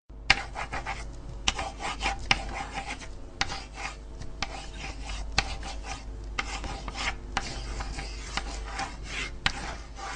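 Old-film countdown sound effect: scratchy, crackling film noise over a steady low hum, with a sharper click about once a second as the numbers count down.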